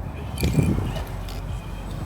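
Small RC crawler truck driven on rock: its electric motor and gears whine faintly while a short scrape and knock of tires and chassis on rock comes about half a second in. Wind rumbles on the microphone.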